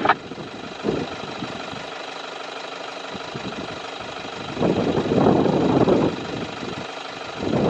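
Vehicle engine idling steadily, with a louder, rougher noise swelling for about a second and a half just past the middle.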